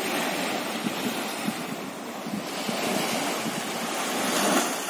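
Small sea waves breaking and washing up a sandy beach, with wind buffeting the microphone; one wave surges louder near the end.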